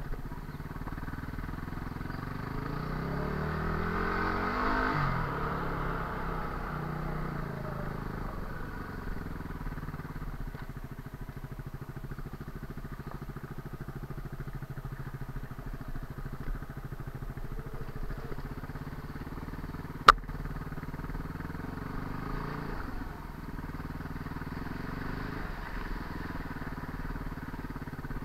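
Yamaha WR250R's single-cylinder four-stroke engine running under way. Its revs rise a few seconds in and then settle to a steady pace. There is a single sharp knock about twenty seconds in.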